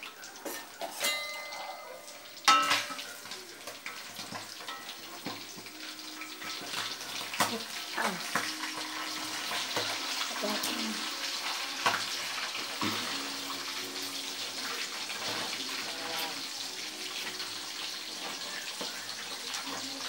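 Catfish deep-frying in hot oil in a steel wok: a steady sizzle, with metal spatula and skimmer clinks and scrapes against the wok as the fish are turned. A sharp clank comes about two and a half seconds in.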